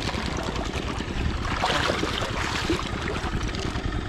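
Shallow river water splashing around a wading man's feet and hands, louder for a second or so about one and a half seconds in, over a steady low rumble of wind on the microphone.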